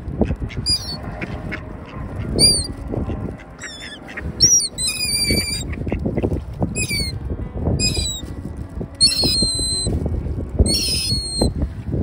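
A gull gives high, squealing calls again and again, in short bursts about every second or two, over a low rustling noise.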